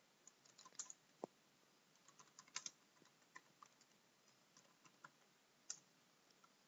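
Faint typing on a computer keyboard: scattered single keystrokes with uneven gaps, and one louder keystroke near the end.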